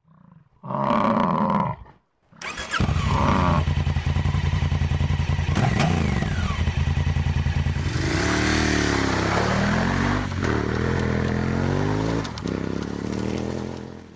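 A motorcycle engine catches and runs at a steady idle, then is blipped up and down in a few revs before fading out. It is preceded by a short, separate sound about a second in.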